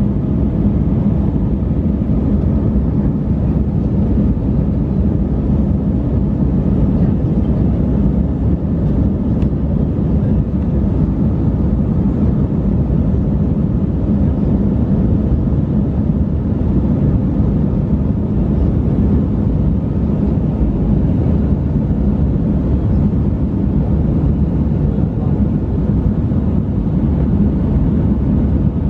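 Airbus A319's IAE V2500 turbofan engines and the airflow over the fuselage, heard from inside the cabin behind the wing during the climb after takeoff. It is a steady, low, even drone with no changes.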